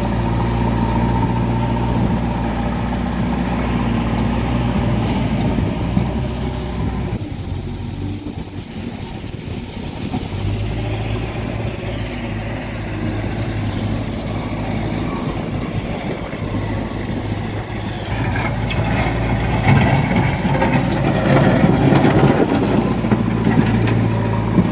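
JCB 3DX backhoe loader's diesel engine running steadily as the machine works. The level dips for a few seconds about seven seconds in and rises louder again near the end.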